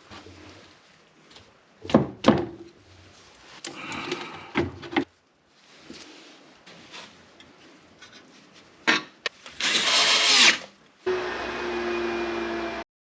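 Hand tools knocking and clinking against metal, then a short loud rasping burst and a power tool running steadily for about two seconds before the sound cuts off suddenly.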